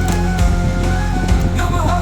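Background music with a steady beat: held tones over regular low drum thumps, with a sliding pitched line near the end.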